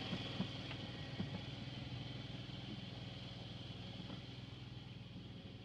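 A ground apple collector's engine running steadily, with faint clatter. It fades slightly toward the end.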